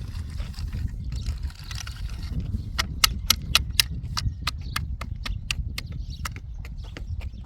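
A quick run of about fifteen sharp knocks, some five a second, over a steady low rumble.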